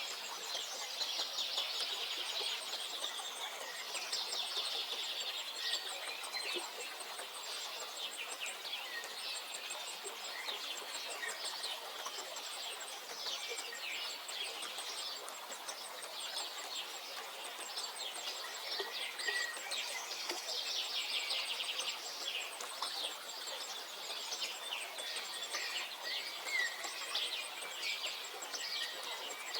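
Several songbirds singing and calling over one another in a dense chorus of short chirps and trills, with a faint, high, rapidly pulsing insect chirr running underneath.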